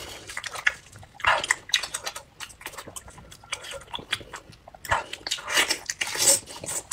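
Close-miked wet eating sounds of a whole octopus: gloved hands pulling the tentacles apart and the eater biting and chewing, a string of squelches, smacks and clicks.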